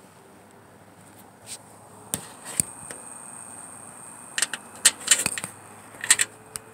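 Irregular sharp clicks and taps, a few early on and a quick cluster from about four seconds in, over a faint steady background.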